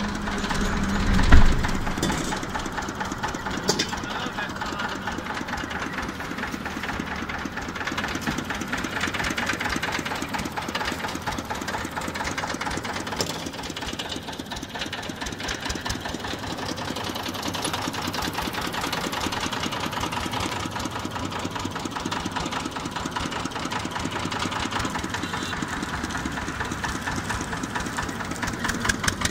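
Small engine driving a sugarcane juice crusher, running steadily with a fast, even beat. A single heavy thump about a second in.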